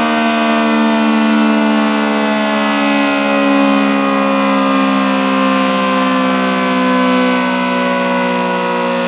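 ACA Screamer S-10 electromechanical outdoor warning siren, reverse-wired, sounding a loud, continuous wail during a test. Its pitch sags slowly downward.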